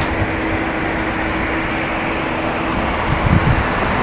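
Steady drone of aircraft engines running at an airport: an even rush with a constant low hum that fades near the end.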